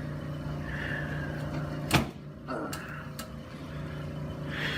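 A single sharp crack about two seconds in, from a chiropractic adjustment, over a steady low hum.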